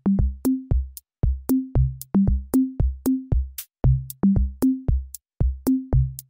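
Background electronic music with a steady drum beat, about four hits a second. The hits are sharp clicks over low pitched drum tones that alternate between two or three pitches.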